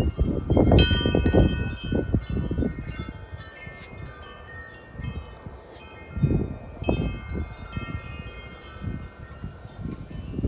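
Wind chimes clanging wildly in strong storm gusts, many overlapping ringing tones. A low rumble of wind gusting on the microphone swells loudest in the first couple of seconds and again around six to seven seconds in.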